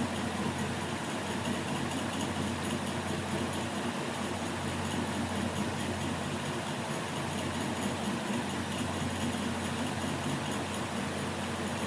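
Steady low hum of a running machine with an even hiss over it.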